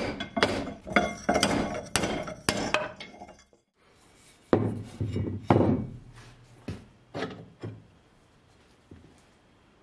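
A rapid run of metal knocks and clinks as the live-center adapter is worked free with a steel rod, then after a short pause a few heavy thunks of a V-belt pulley being turned over and set down on a wooden workbench.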